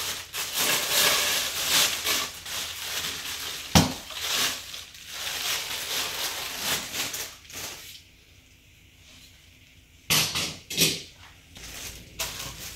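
Plastic wrap and cardboard packaging rustling and crinkling as barbecue grill parts are pulled out of their box, with a sharp knock of a part about four seconds in. After a brief lull, two louder clatters of parts being handled follow near the end.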